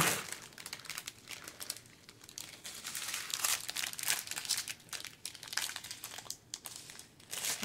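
Clear plastic drill baggies and their plastic sleeve crinkling and rustling as they are handled, in irregular crackles, louder in the middle.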